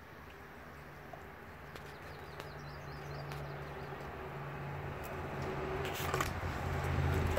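A low engine hum grows steadily louder, probably a passing vehicle. Over it come a few sharp crunches as a dog chews a frozen raw tilapia, the loudest about six seconds in, and birds chirp faintly.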